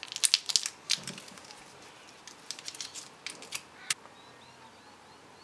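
Foil wrapper of a Whittaker's Peanut Slab chocolate bar crinkling and crackling as it is opened: a dense run of sharp crackles in the first second, then another scatter of crackles about two and a half to four seconds in.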